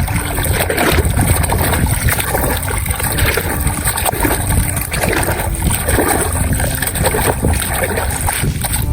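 Water splashing and gurgling as toy trucks are washed in it.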